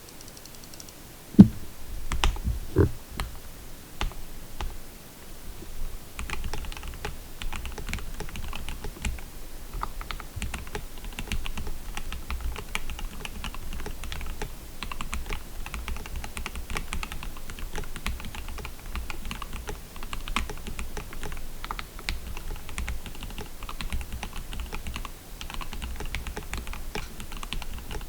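Typing on a KBD67 Lite R2 mechanical keyboard with lubed, filmed Gateron Black Ink V2 linear switches, a polycarbonate plate and PBT Cherry-profile keycaps. After a loud low thump about a second in and a few separate keystrokes, steady fast typing runs over a faint microphone hiss.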